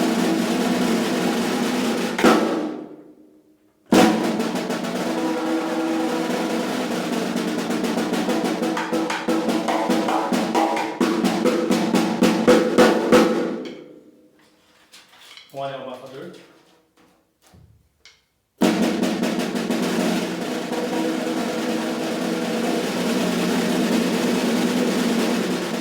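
Freshly tuned snare drum with a new head played in fast rolls. It stops briefly about three seconds in and again for a few seconds past the middle, then the rolls resume.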